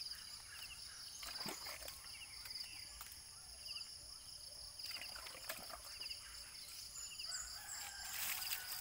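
Rural outdoor ambience: a steady high whine and short high chirps repeating every half second or so, with a few light splashes and knocks from hands washing a motorcycle's rear wheel. Near the end comes a short rush of water poured from a pitcher onto the wheel.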